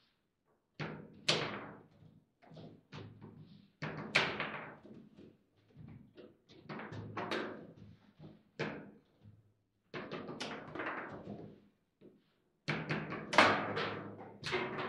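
Foosball table in play: sharp clacks and thuds of the ball and the rods' players striking the ball and the table, irregular hits about every second, with the loudest flurry near the end.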